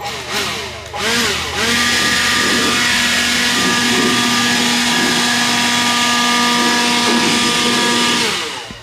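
A power tool's motor comes up to speed over the first second or so, runs steadily at high speed for about seven seconds, then winds down near the end.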